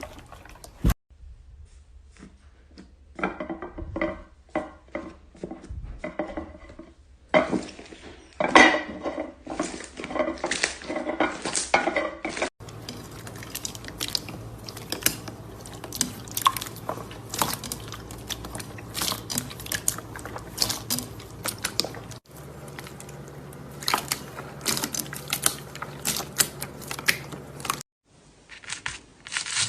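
Slime being squeezed, stretched and poked by hand, giving rapid wet clicks, pops and crackles in several short clips cut together.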